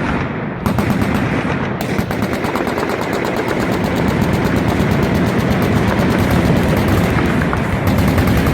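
Machine guns firing long, rapid strings of fully automatic shots, one on top of another.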